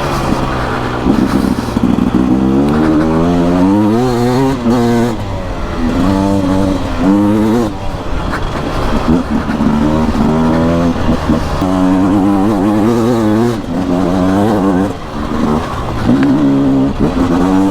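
Beta RR 300 single-cylinder two-stroke enduro engine under hard riding, its pitch repeatedly climbing as the throttle is opened and dropping back at each shift or roll-off, over and over.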